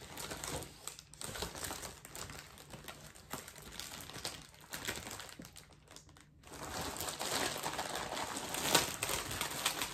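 Plastic padded mailer crinkling and rustling as it is handled, in uneven bursts that get louder over the last few seconds.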